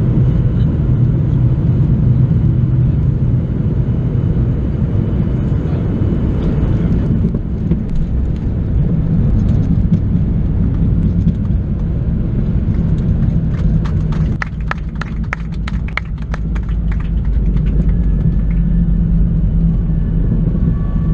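Cabin noise of a Boeing 737-800 touching down and rolling out on the runway with its spoilers raised: a loud, steady rumble of the CFM56 engines, airflow and wheels. The rumble changes character about a third of the way in, and a burst of rapid rattling clicks comes about two-thirds of the way through.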